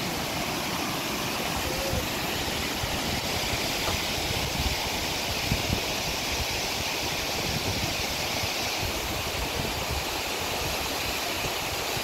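Dzhuryn waterfall, water cascading over several rock ledges into the river, rushing with a steady, even roar.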